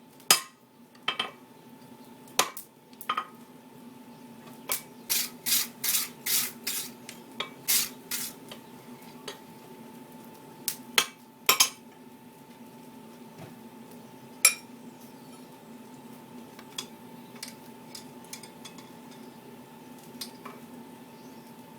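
Blacksmith's hammer striking metal on an anvil: a few single blows, a quick run of about a dozen strikes about five seconds in, then scattered single blows and only faint ticks in the last third. A steady hum runs underneath.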